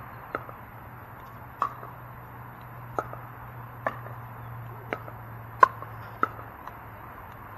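Pickleball rally: seven sharp pocks of paddles hitting the hard plastic ball, roughly a second apart, the loudest a little past halfway, over a steady low hum.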